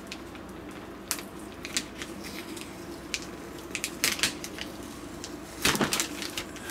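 Fingers picking at and peeling a clear plastic wrap on a cardboard box: scattered crinkles and crackles of the plastic, loudest about four seconds in and again near the end.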